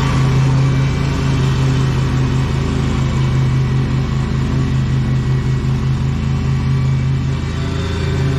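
Lawn mower engine running steadily under load, with a strong pulsing low hum.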